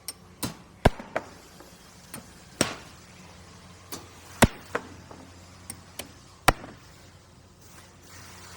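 Construction work: sharp knocks and bangs at uneven intervals, about a dozen in all, over a steady low hum. The loudest come about a second in, halfway through and about two-thirds of the way through.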